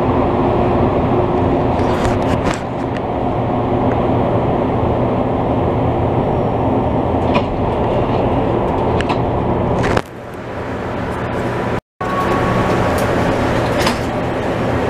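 Steady rumble and hum inside a rubber-tyred MR-73 metro car as it stops at a station, with a few sharp clicks and knocks from the sliding doors opening and closing. The sound drops suddenly about ten seconds in and cuts out for a moment just before twelve seconds.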